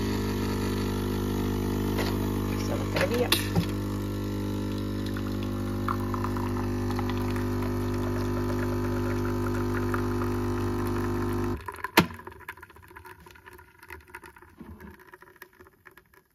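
Nescafé Dolce Gusto capsule coffee machine's pump humming steadily as it brews a capsule into a mug, then cutting off suddenly about eleven seconds in, followed by a single knock.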